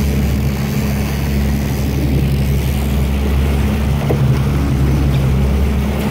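Boat engine running steadily at trolling speed, a constant low drone, with water washing past the hull.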